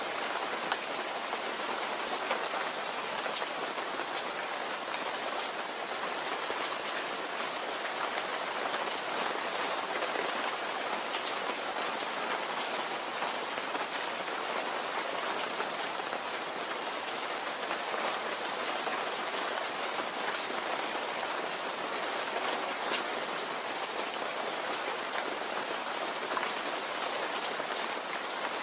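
Steady rain falling, with the patter of individual drops landing close by.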